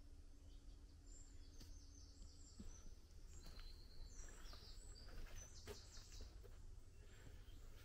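Faint bird chirps: a quick run of short high notes, starting about a second in and dying away near the end, over a low steady background rumble.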